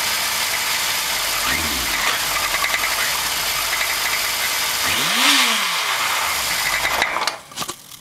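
Kawasaki Z1000 A2's air-cooled inline-four engine running with a mechanical rattle. It is revved briefly about five seconds in, then the sound drops away sharply near the end, leaving a few clicks.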